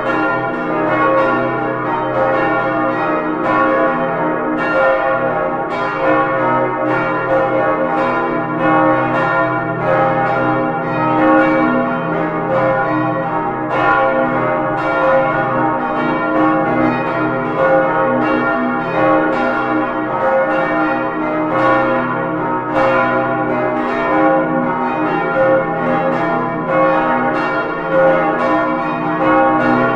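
Full peal of five swinging church bells, cast 1947 by the Albert Junker foundry in Brilon and tuned to D♭, E♭, F, A♭ and B♭, ringing together close up inside the belfry: clapper strikes fall irregularly several times a second over the bells' sustained, overlapping ringing.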